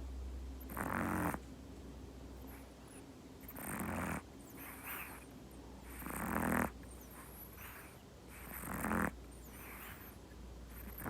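American Shorthair cat snoring in its sleep: each breath swells and then cuts off, about every two and a half seconds, with fainter breaths in between.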